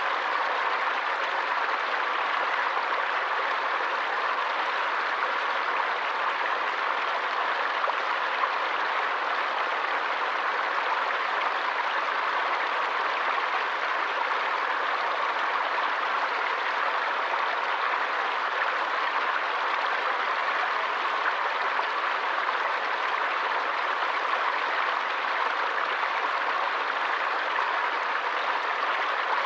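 Running water of a stream, a steady, even rush with no pauses or changes.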